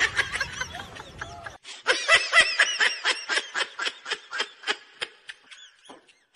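Rapid snickering laughter, a run of short high-pitched laughs about five a second that starts suddenly after a second and a half and slowly fades out.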